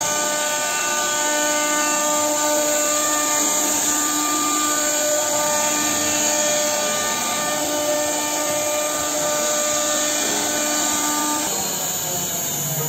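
CNC wood router's spindle running and carving wood: a steady whine made of several steady tones. The tones drop out about eleven and a half seconds in, leaving a quieter hiss.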